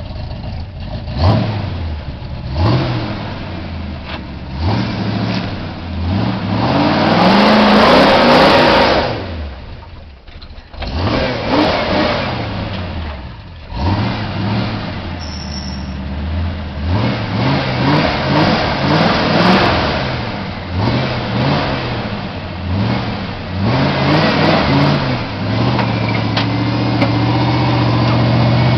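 Jeep CJ-7 Renegade's 360 cu in (5.9-litre) V8 revving in repeated bursts, the pitch rising and falling every second or two as it crawls under load up a steep rocky slope. The loudest, roughest stretch comes around seven to nine seconds in, with brief drops in revs a little later.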